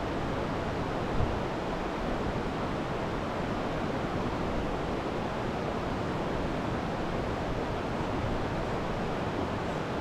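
Steady rush of a shallow creek flowing over rocks, with a brief knock about a second in.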